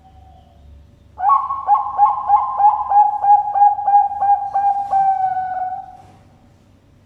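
Zebra dove (Bangkok-type perkutut) cooing. A loud, rapid run of short coos, about four a second, ends in a longer drawn-out final note.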